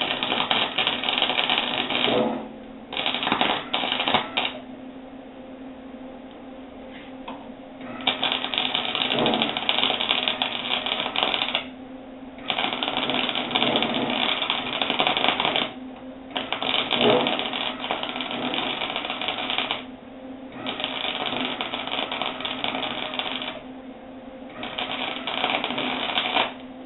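Small Job Smart flux-core wire-feed welder running .030 wire, its arc crackling and spitting in a series of bursts a few seconds long with short gaps between, as plug welds are laid on sheet-metal cowl panels without shielding gas. A steady low hum runs beneath.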